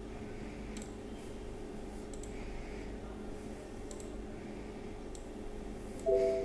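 Faint scattered clicks of a computer keyboard and mouse being worked over a low steady hum. About six seconds in, a short electronic tone of several notes at once sounds briefly.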